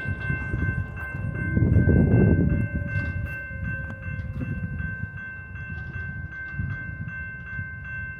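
Railroad grade-crossing warning bell ringing in an even, rapid rhythm of about three strikes a second, signalling that the crossing is activated for an approaching train. Under it is a low rumble that is loudest about two seconds in.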